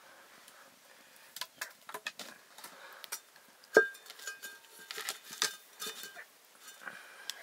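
Irregular clinks and knocks of metal cookware and utensils being handled, some with a short ring, and one loud clank about four seconds in.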